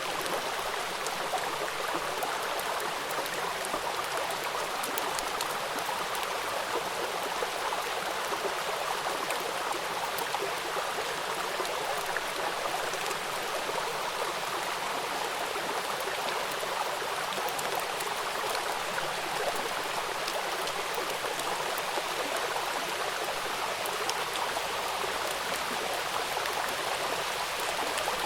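Rain falling on a river: a steady hiss of rainfall with a fine, dense patter of drops striking the water.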